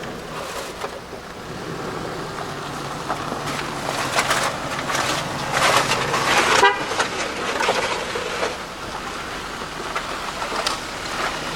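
A vehicle horn honks over the steady noise of passing road traffic.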